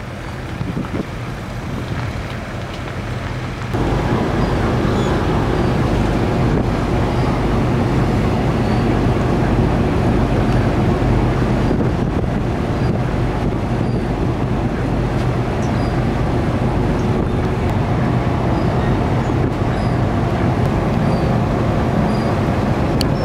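Wind and road noise for the first few seconds, then, after an abrupt change about four seconds in, the steady low drone of a ferry's engines heard from the car deck, with wind on the microphone.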